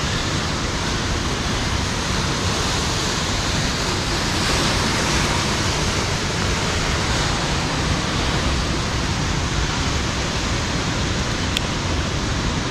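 A steady, even rushing noise with no separate events, holding at one level throughout.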